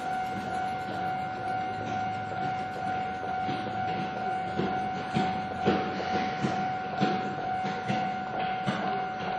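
Railway level-crossing warning signal sounding as a steady tone while a Keihan electric train passes, its wheels clacking over the rail joints from about three seconds in.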